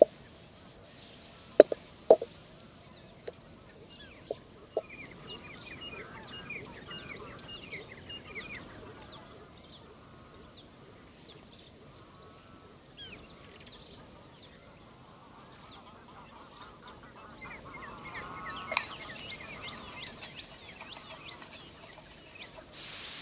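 Birds chirping repeatedly in the background, with a louder honking bird call about three-quarters of the way through. A few sharp knocks of a wooden spatula against the iron pan come in the first couple of seconds.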